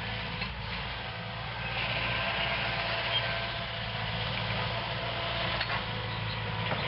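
Hitachi 130 excavator's diesel engine running steadily.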